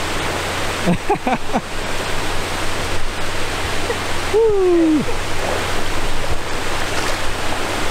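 Steady rush of moving river water with wind noise on the microphone. Brief voice sounds come about a second in, and a short falling vocal sound comes around four and a half seconds.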